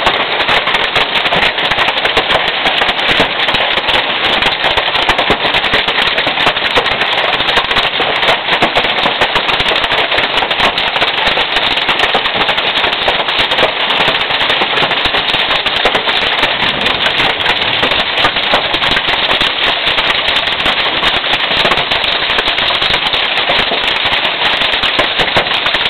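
Large hailstones pelting down in a dense, continuous clatter of countless rapid impacts.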